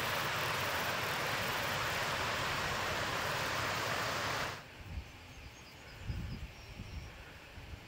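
Steady rushing of a mountain stream, which cuts off abruptly about halfway through. A much quieter stretch follows, with a few soft low thumps and a short run of faint high chirps.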